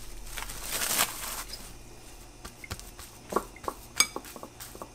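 Soft rustling, then scattered light clicks and taps, the sharpest about four seconds in: the small handling noises of covering a bowl of dough and setting it aside.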